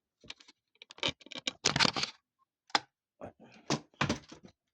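Handling noise: an uneven run of clicks, taps and knocks as hard objects are moved about, with a longer rattling clatter about two seconds in and a couple of sharper knocks near the end.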